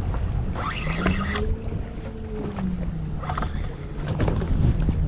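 Boat motor humming, rising and then falling in pitch across the middle, over wind buffeting the microphone and the rumble of water around the hull.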